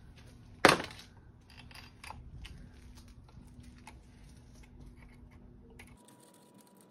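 Metal bike parts and hand tools being handled while a bolt is fitted: one sharp metallic clack under a second in, then light clicks and rattles.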